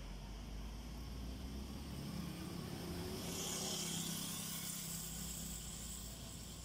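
A motorcycle passes on the road: its engine and tyres grow louder to a peak about halfway through, then fade away.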